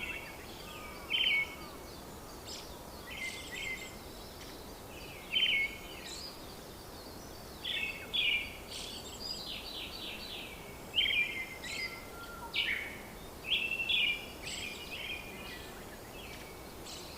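Birds calling in short chattering phrases every second or two over a steady background hiss.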